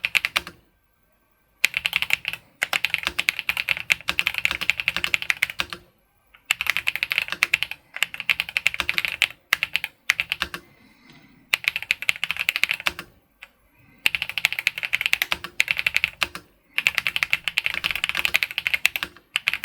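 Royal Kludge S98 96% wireless mechanical keyboard being typed on fast, its keys clicking in rapid runs of a few seconds each with short pauses between.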